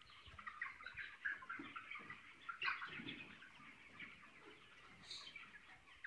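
A flock of broiler chickens calling faintly, many short overlapping chirps and clucks.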